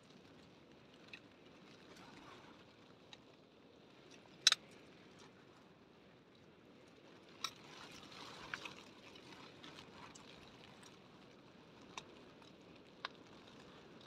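A metal spoon clicking and scraping against a steel tiffin tin, several small clinks with one sharp clink about four and a half seconds in, over a faint steady rush of rain and the waterfall outside the tent.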